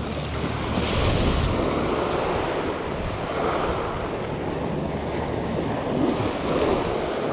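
Small surf waves washing in and out over the sand at the shoreline, swelling louder about a second in and again near the end, with wind buffeting the microphone.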